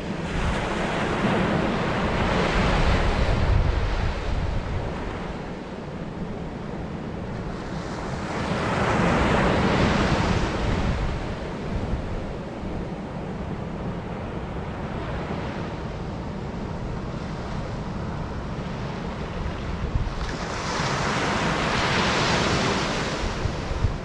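Surf breaking and washing up a sandy beach, swelling three times, the last near the end. Under it, wind buffets the microphone with a steady low rumble.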